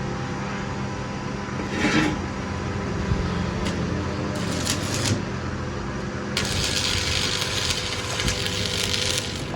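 Metalworking noise: a steady low machine hum, a scraping clank about two seconds in, a few short rasps, then a few seconds of harsh hissing noise.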